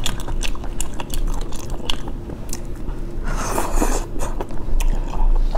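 Close-up eating of spicy stir-fried sea snails: wet chewing with frequent lip smacks and clicks. About three and a half seconds in comes a louder sucking slurp as the meat is drawn out of a shell.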